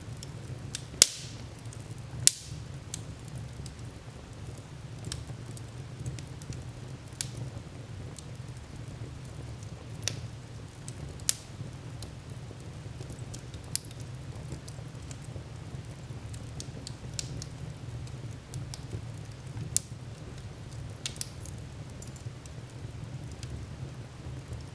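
Wood fire burning in a fireplace: irregular sharp crackles and pops over a steady low rumble of the flames, with the two loudest pops about a second and two seconds in.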